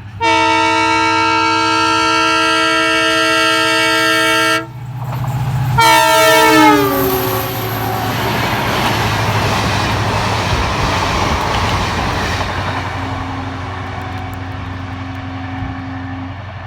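A train passing at speed. Its horn sounds a long steady chord for about four and a half seconds, then sounds again and drops in pitch as the train goes by. Then comes the rush and rumble of the train running past on the rails, slowly fading.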